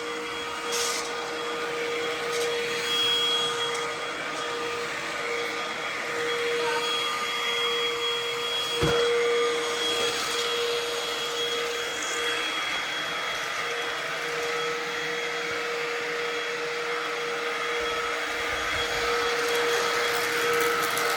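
Ozito PXC 18V cordless stick vacuum running steadily, a constant motor whine over airflow hiss, on what the owner takes to be its eco power setting. A single brief knock about nine seconds in.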